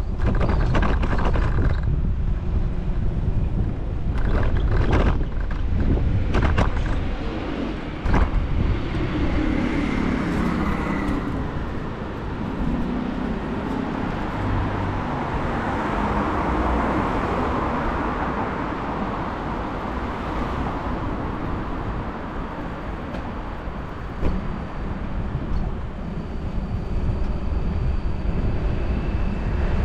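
Road traffic heard from a moving bicycle, with wind on the camera's microphone. There are several sharp knocks in the first eight seconds, and a passing vehicle's noise swells and fades in the middle.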